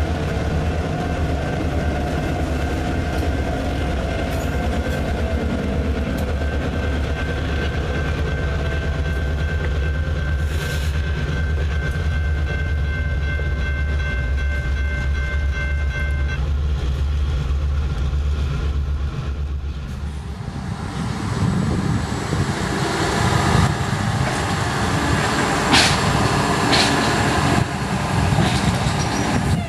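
CSX diesel locomotive running close by as it hauls covered hopper cars past: a steady low engine rumble with several steady high tones over it that stop about two-thirds of the way through. After a change at about twenty seconds, a track maintenance machine's engine runs with a few sharp clanks near the end.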